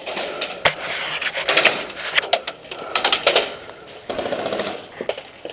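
Airsoft gun firing on full auto: several short bursts of rapid, evenly spaced clicks.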